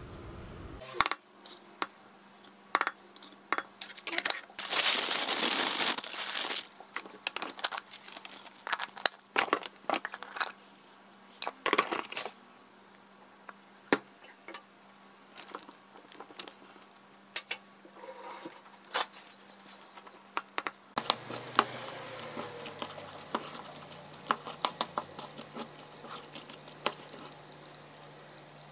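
Muesli's plastic inner bag crinkling and muesli pouring out, the loudest rush about four to six seconds in. Scattered clicks and taps follow as toppings go onto yogurt and a wooden spoon mixes it in a pan.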